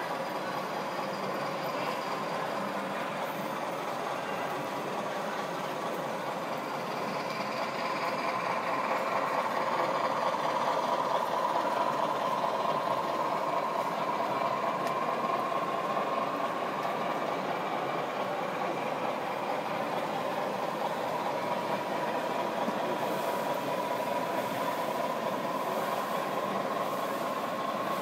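O scale model train running past: a model diesel locomotive hauling a van and loaded hopper wagons, with steady wheel-on-rail running noise and a faint whine, a little louder about ten seconds in.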